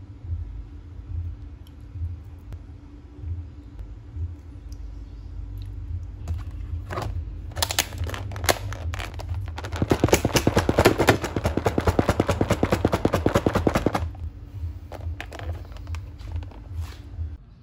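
Plastic lid being pressed down and snapped onto a plastic food container. A few separate clicks come first, then about four seconds of rapid crackling clicks that stop suddenly.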